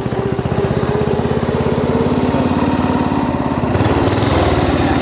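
Small engine of a home-built hot rod tractor running steadily as it is driven, its rapid, even exhaust pulses dominating, with a louder surge a little under four seconds in.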